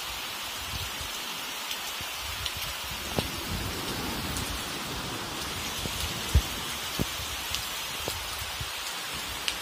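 Heavy summer storm rain pouring steadily, with a few sharp taps scattered through it, the loudest a little past the middle.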